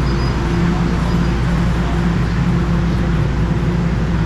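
Toronto TTC subway train running, a steady loud rumble with a low, even hum.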